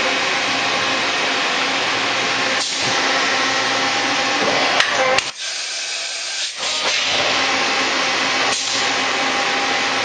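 Mori-Seiki MV-65B/50 vertical CNC machining center running, a steady hiss and hum. About five seconds in there are two sharp clicks, and then the lower part of the noise drops away for about a second before it comes back.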